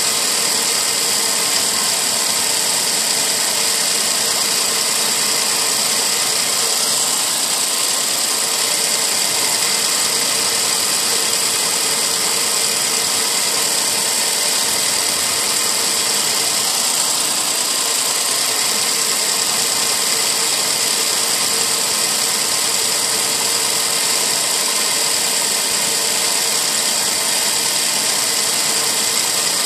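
Homemade bench drill press running steadily, spinning a sanding drum made from a drill bit, a rubber hose and glued sandpaper against the inside edge of an MDF letter.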